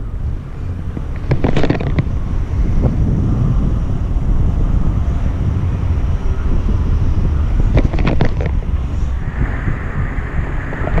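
Wind buffeting the microphone, a steady low rumble, with two short bursts of clicks about a second and a half in and again about eight seconds in.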